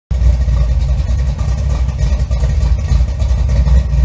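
A car engine running steadily, its sound sitting mostly low in pitch.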